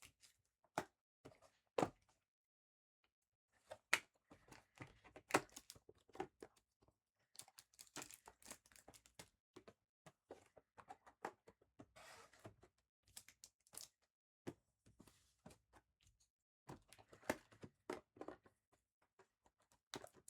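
Trading-card packs being torn open and handled: faint ripping and crinkling of wrappers mixed with light clicks and taps, in short irregular spurts.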